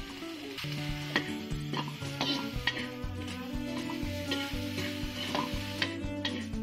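Metal spatula scraping and knocking against a metal wok as chopped pork and onion sizzle and fry, stirred in repeated strokes. Background music with steady held notes plays underneath.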